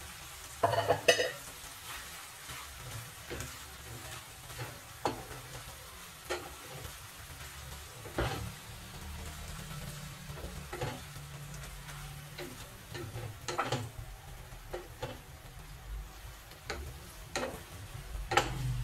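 Wooden spatula stirring and tossing instant noodles and tuna in a frying pan, giving irregular scrapes and knocks against the pan over a light sizzle, with a louder clatter about a second in.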